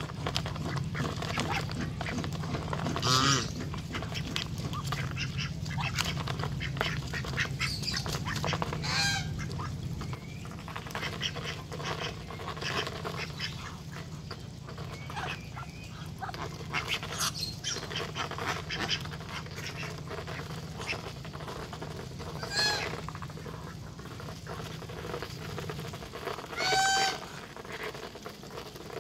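Domestic ducks and geese feeding from a metal tray: a steady patter of bills clicking and tapping on the tray, with a few loud calls scattered through, the loudest near the end.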